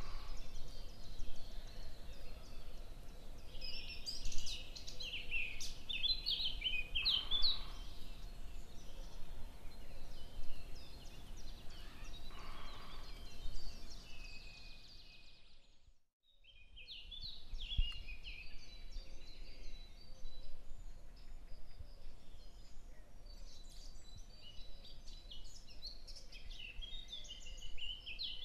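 Small birds chirping in quick runs of short high notes over a steady low background rumble. The sound dips out briefly about halfway through, then fades back in.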